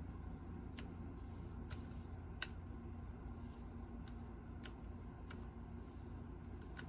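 Custom keyboard struck in stenotype chords for Korean: about seven separate sharp key clicks, roughly one every second, over a steady low hum.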